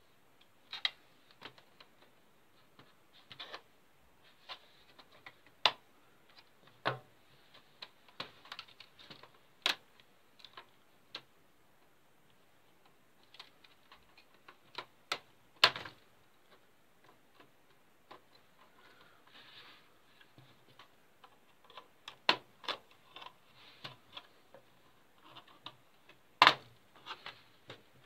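Plastic casing of a Packard Bell EasyNote TJ75 laptop clicking and snapping as it is pried and handled apart, with irregular taps and rattles. The sharpest snaps come about halfway through and near the end.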